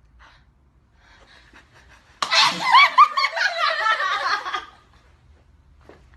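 Laughter from several people, bursting out suddenly about two seconds in and dying away after about two and a half seconds.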